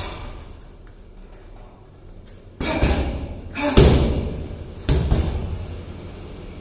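Muay Thai strikes landing on a hanging heavy bag: the tail of one hit at the very start, then three heavy thuds about two and a half, four and five seconds in, each dying away over about a second.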